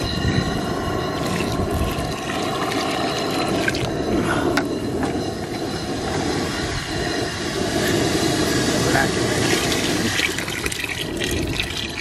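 Maple sap boiling hard in a large aluminium stockpot over a propane burner: a steady, dense rush of burner and rolling boil. Near the end, more sap starts pouring in from a bucket.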